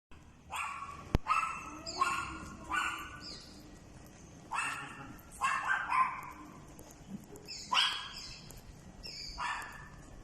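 A dog barking in short, high, pitched barks, about ten in irregular clusters of two or three. A sharp click sounds about a second in.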